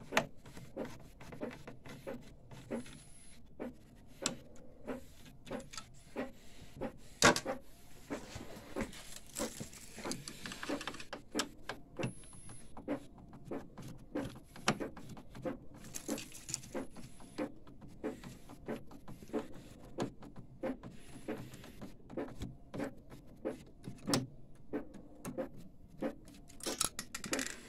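Hand screwdriver turning out screws in a metal and plastic printer chassis: a steady string of small clicks and scrapes, with one sharp click about seven seconds in.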